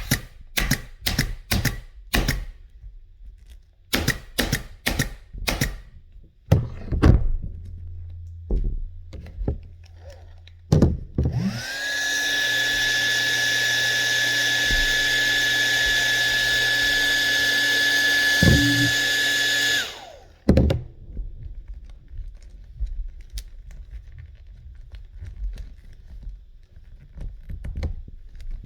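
Pneumatic stapler firing staples in a quick run of sharp shots, then a few duller knocks. Next a motor-driven blower spins up with a rising whine, runs steadily for about eight seconds and shuts off. Faint light clicks follow.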